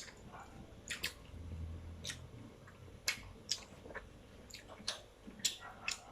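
Momos being eaten fast in an eating challenge: wet chewing with sharp lip-smacks and clicks at irregular intervals.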